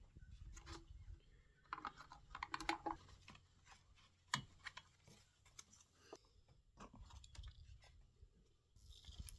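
Small scattered clicks, taps and light rattles of hands fitting a new carburettor and its fuel-line fittings onto a string trimmer's plastic engine housing, with a sharper click about halfway through.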